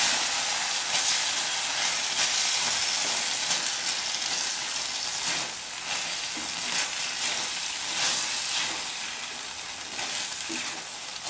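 Chicken sausages sizzling in a nonstick frying pan in a reducing sauce glaze, with a silicone utensil stirring and turning them now and then. The sizzle eases gradually as the sauce thickens.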